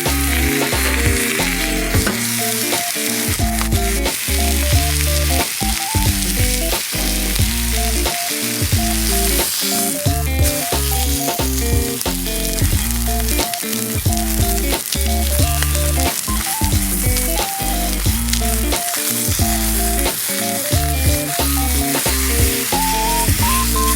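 Food sizzling and frying in a pan on a wood stove, with stirring, under background music with a steady beat and bass.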